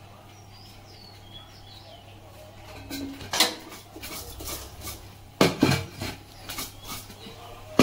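An aluminium cooking pot and its metal lid clanking as they are handled: a few sharp knocks starting about three seconds in, the loudest about five and a half seconds in, then lighter taps. Faint bird chirps can be heard in the quieter first part.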